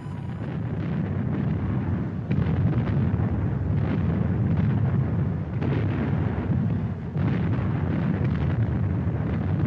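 Wind rumbling on the camera's microphone, with a hiss of rain over it and a few faint knocks.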